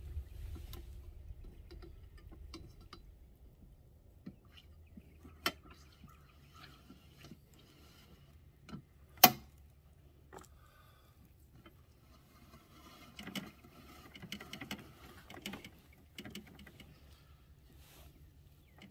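Wet clothes being worked through the roller wringer of a hand-powered washing machine: scattered clicks and knocks of the metal wringer and tub, with one sharp, loud click about nine seconds in, and a busier stretch of clicking and rustling later on. Low wind rumble on the microphone fades in the first second.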